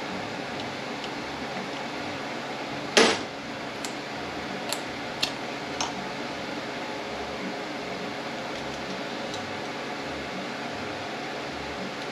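Metal parts of an automatic transmission being handled during teardown: one loud clank with a short ring about three seconds in, then a few light clicks and taps, over a steady background hum.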